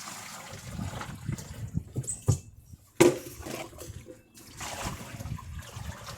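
Water trickling and splashing inside a dishwasher as it fills, with a few low knocks. It drops off briefly near the middle and comes back suddenly.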